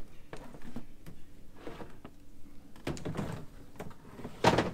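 A coiled hose is set down in a pickup truck's bed, with scattered knocks and clatters against the bed and the gear in it. The loudest knock comes near the end.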